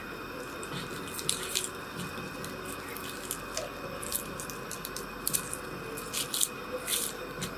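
Irregular light drips and ticks of water into a wok of water, about a dozen, the loudest near the end, over a faint steady hum.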